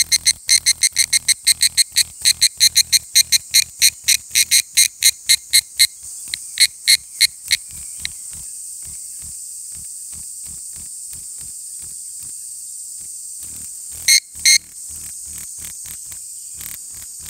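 Higurashi (evening cicada) calling: a fast run of ringing pulses, about five a second, that slows and fades out about seven to eight seconds in. A steady high hiss follows, with two more short pulses near the end.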